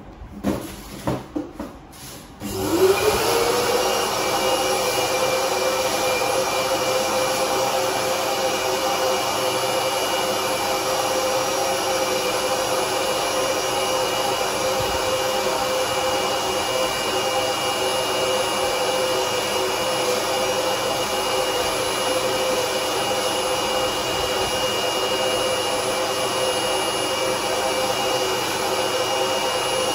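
A few knocks, then about two and a half seconds in a small electric motor with a rush of air spins up, rising in pitch, and runs steadily.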